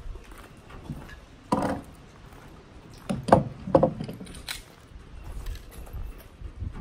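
Footsteps on gravel and a few light handling clicks, with two short voice sounds about three seconds in.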